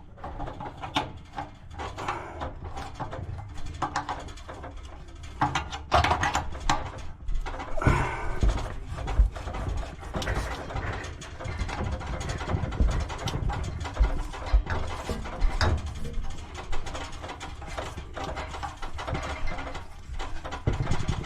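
Irregular clinks, knocks and scraping of a wrench and hand tools working on water heater supply-line fittings.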